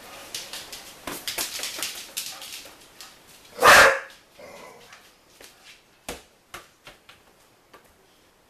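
Pit bull puppy barking once, loudly, about three and a half seconds in, amid a run of quick taps and clicks before and after.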